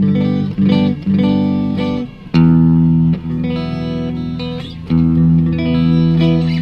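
Gibson 2014 Les Paul Goldtop electric guitar played with a clean tone through a Blackstar tube amp. A few short picked chords come first, then a chord is struck and left to ring about two seconds in, and another near five seconds.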